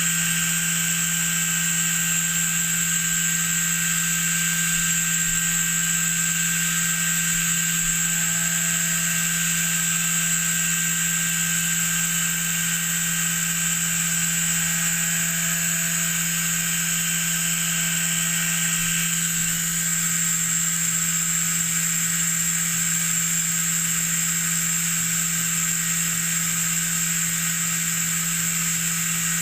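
Okuma MB-4000H horizontal machining center milling metal dry, with the coolant off: a steady machine hum with a high whine over the cutting noise. One of the higher tones drops out about two-thirds of the way through.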